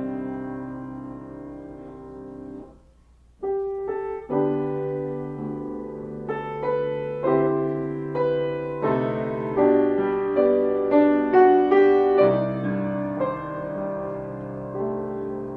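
Solo piano playing, notes struck and left to ring. The music breaks off briefly just before three seconds in, then comes back and builds, loudest about three-quarters of the way through, before easing off near the end.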